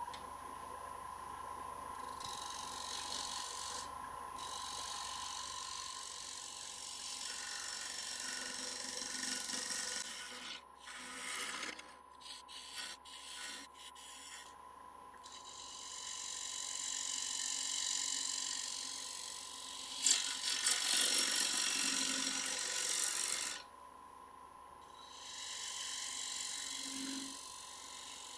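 Wood lathe running with a steady whine while a gouge cuts the outside of a spinning heart-shaped sycamore bowl blank. The cut gives a dry hiss of shavings peeling off in long passes with short breaks, and it turns choppy for a few seconds in the middle.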